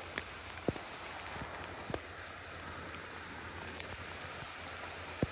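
Steady rush of heavy rain and a fast-flowing, swollen stream blending into one even hiss, with a few sharp ticks scattered through it.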